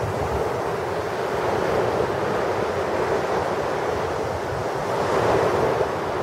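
Small sea waves breaking and washing up a sandy beach in a steady rush of surf, swelling a little louder about five seconds in.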